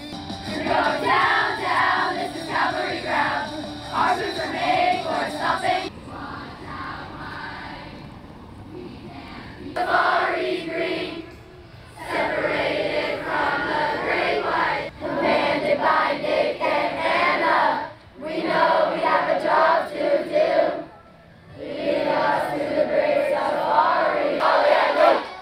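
A large group of campers singing and chanting together in loud phrases, with a quieter stretch about a quarter of the way through and short breaks between later phrases.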